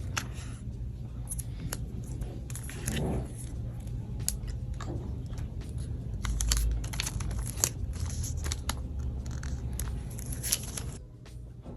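Product packaging being opened and handled: tearing, crinkling and crunching with many small clicks and taps, over a steady low hum.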